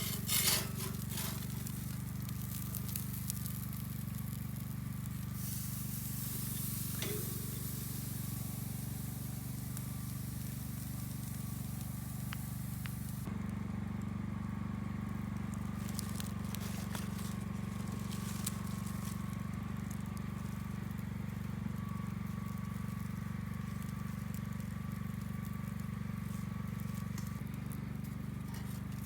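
Campfire crackling, with scattered sharp pops and clicks over a steady low hum.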